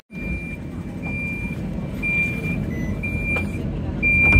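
Tram door warning beeps: a single high beep about half a second long, repeating about once a second, over the low hum of the stopped tram, signalling that the doors are about to close.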